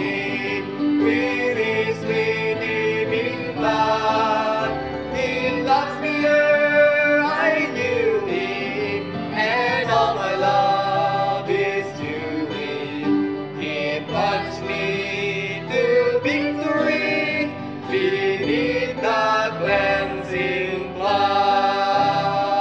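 A hymn sung by a small group of singers, a man leading, with piano, keyboard and acoustic guitar accompaniment.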